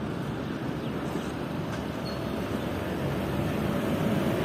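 Steady low rumble of a passenger train's coaches rolling across a steel arch rail bridge as the last coach passes.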